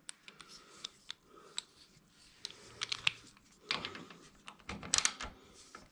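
Scattered small clicks and clinks of hand tools and metal suspension-linkage parts being handled, with a few louder clattering bursts in the middle and near the end.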